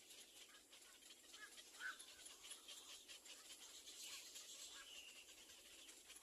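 Faint nestling birds giving a few short, scattered chirps over a steady hiss, as chicks waiting to be fed.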